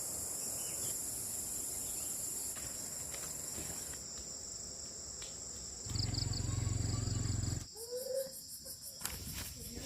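Insects keeping up a steady high-pitched chorus. About six seconds in, a loud low rumble joins them and cuts off sharply a little under two seconds later.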